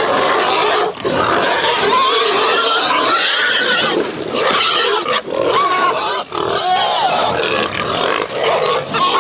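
A group of pigs squealing loudly and continuously, many wavering cries overlapping. They are hungry pigs clamouring for their feed ration.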